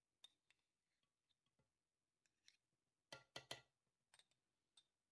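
Faint clicks and taps as coconut butter is scooped from a small bowl into a stainless steel food processor bowl, with three louder knocks in quick succession about three seconds in.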